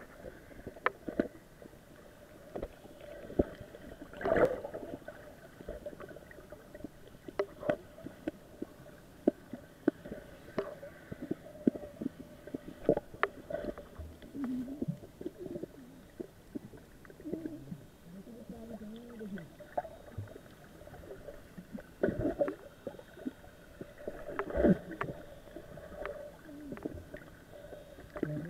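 Underwater sound picked up through an action camera's waterproof housing: a muffled wash of moving water, broken by frequent sharp clicks and knocks, with a few muffled wavering tones around the middle.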